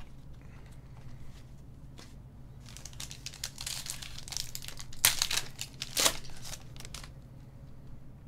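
Foil wrapper of a Panini Select trading-card pack crinkling and tearing as it is ripped open by hand. The loudest moments are two sharp rips about five and six seconds in.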